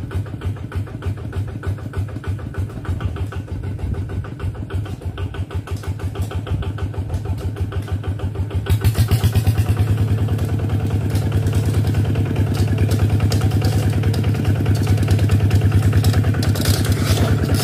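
Kubota walking tractor's single-cylinder diesel engine running with a fast, even chugging as the tractor drives along, getting louder about halfway through as it comes closer.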